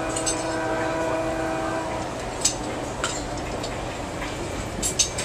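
A train horn sounding a steady chord, heard from inside a passenger car, cutting off about two seconds in. Under it the car's steady running rumble, with a few sharp clicks and knocks after the horn stops.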